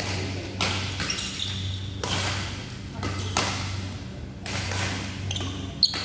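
Badminton rally on an indoor court: shoes squeaking and footfalls, with a sharp racket strike on the shuttlecock near the end. A steady low hum and faint voices run underneath.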